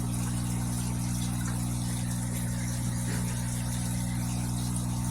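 Fish-room aquarium equipment humming steadily: a low, even electrical drone with a faint hiss.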